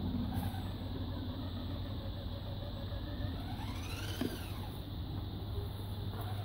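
Brushed 35-turn electric motor and gearbox of a 1/10-scale RC crawler whining as it drives, the whine rising and then falling in pitch about four seconds in as the throttle is opened and eased off.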